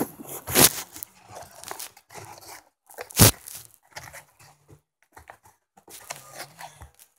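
Toy packaging being torn and crumpled by hand while a toy is pulled out of its box: scattered rustling with two loud sharp tears, about half a second in and about three seconds in.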